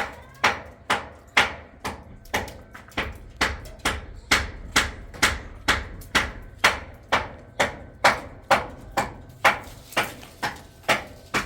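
Hammer striking metal in a steady rhythm, about two blows a second, each blow ringing briefly.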